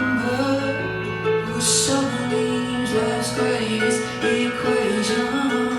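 Live music: a singer's voice held and bending over sustained instrumental accompaniment.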